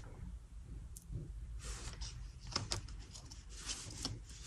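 Faint handling sounds of screen-printing gear on a table: a few light clicks and short scrapes and rustles.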